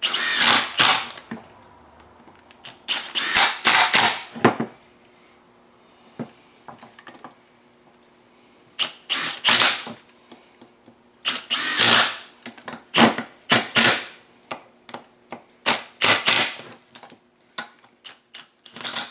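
Cordless drill/driver run in short bursts of about a second, with pauses between them, as it drives fasteners into a Husqvarna 372 chainsaw crankcase.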